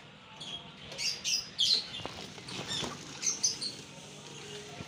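Small birds chirping in quick, high-pitched calls over and over, with a couple of faint clicks around the middle.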